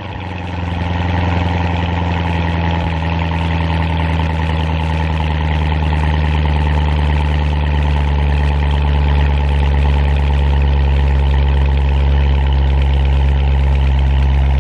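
C7 Corvette's V8 idling steadily just after a cold start.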